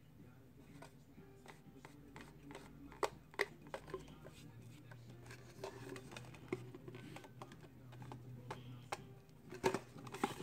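Light, irregular clicks and taps of a plastic tumbler and craft supplies being handled on a table, over a faint low hum.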